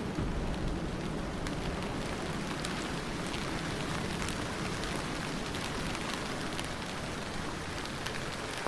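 Steady rainfall, a dense even hiss with scattered sharper drop ticks, with no thunder.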